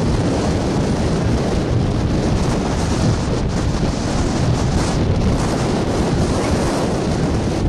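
Steady wind buffeting the microphone, a loud rumbling hiss that covers everything else.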